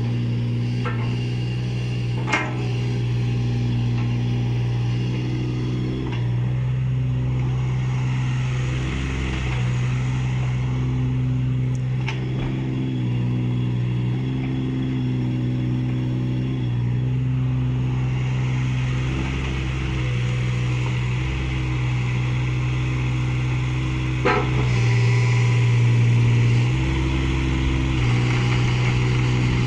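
Kubota KX015-4 mini excavator's small diesel engine running while its hydraulics work the boom, arm and bucket, the engine note shifting every few seconds as the load changes. A few sharp clanks from the moving parts, and a louder stretch near the end.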